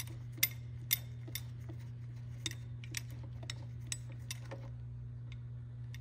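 Scattered sharp metallic clicks, about one or two a second, from a ratchet slowly loosening the screw of a chain breaker tool on an engine timing chain; the clicks stop about four and a half seconds in, leaving a steady low hum.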